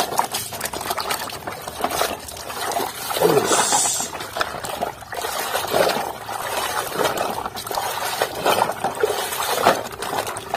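Plastic toy trucks being swished and dunked by hand in a bucket of muddy water: irregular sloshing and splashing.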